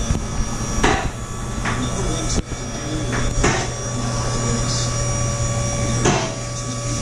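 Shop work on a car's exhaust: several sharp metal knocks, hammer-like and irregularly spaced, over a steady low hum.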